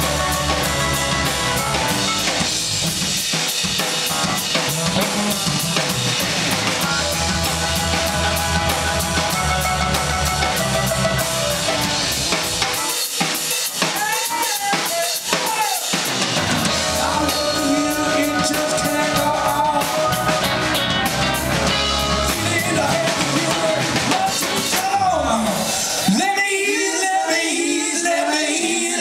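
Live funk band playing in a New Orleans funk groove: electric guitar, bass guitar, drum kit and keyboards. About halfway through the bass falls away for a few seconds, leaving drums and guitar, and near the end the bass and drums drop out under the band's voices singing.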